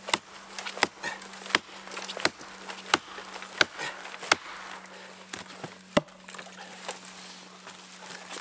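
An axe chopping into a fallen log: seven sharp blows about two-thirds of a second apart, a short pause, then one more blow about six seconds in. A faint steady hum runs underneath.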